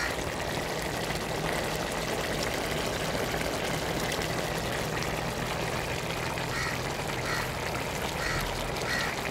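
Large aluminium pot of vegetable pulao boiling hard as its last water cooks off: a steady bubbling hiss with a low hum underneath.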